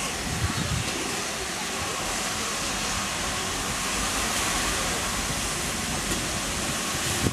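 GWR 'Modified Hall' 4-6-0 steam locomotive No. 6989 running slowly tender-first into the platform, with a steady hiss of steam.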